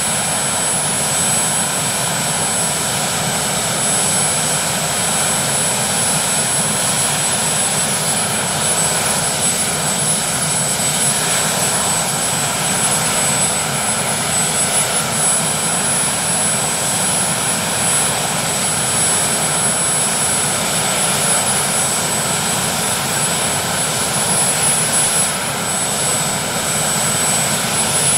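Westland Sea King helicopter running on the ground with its main rotor turning: its twin Rolls-Royce Gnome turboshafts give a steady high-pitched turbine whine over the engine and rotor noise.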